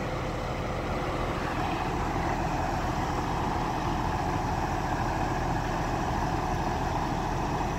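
Heavy truck engine running steadily at the work site, growing somewhat louder about a second and a half in.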